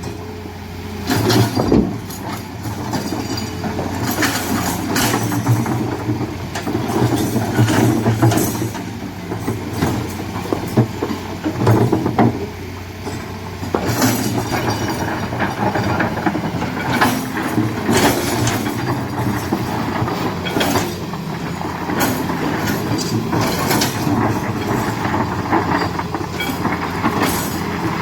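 Heavy diesel machinery running steadily, with repeated irregular metallic clanks and rattles over the engine.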